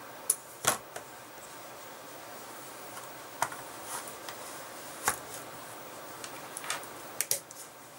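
Scattered sharp clicks and taps of a Jacklore White Knight knife being slid into its stiff wet-moulded leather sheath and the sheath being handled on a wooden table, with a quick double click near the end.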